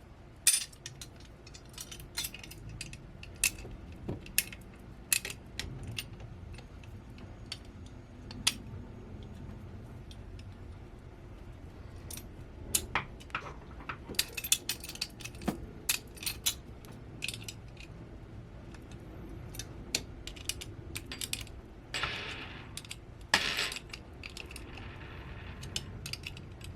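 Small metal parts of a VESA monitor-mount adapter clinking and clicking as a nut is worked on with a small hand tool: irregular sharp clicks throughout, with two longer rattling, scraping stretches near the end.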